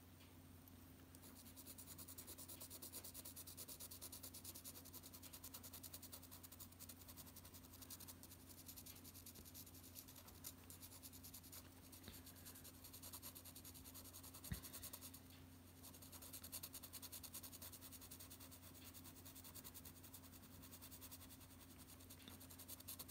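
Graphite pencil held on its side scratching lightly across drawing paper in quick, sketchy shading strokes, faint, with a steady low hum beneath and one sharp click about two-thirds of the way through.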